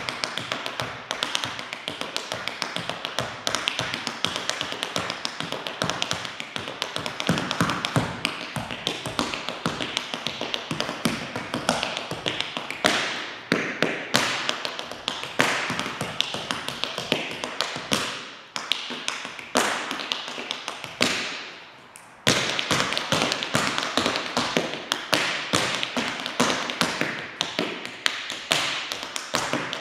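Tap shoes striking a hard studio floor in a fast a cappella tap routine, with dense rapid taps, shuffles and stamps and no music. The taps break off briefly about two-thirds of the way through, then start again.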